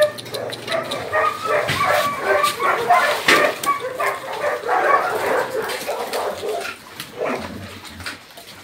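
Many dogs yipping, whining and barking over one another, dying down after about seven seconds.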